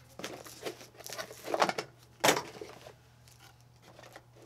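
Hands rummaging in a cardboard product box and handling hard plastic parts: a run of rustles and clicks, a longer rustle about one and a half seconds in and a sharper click a little after two seconds, then only faint handling.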